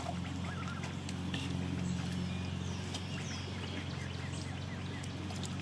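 Young white ducks dabbling with their bills in a shallow stream: scattered small clicks and splashes over a steady low hum.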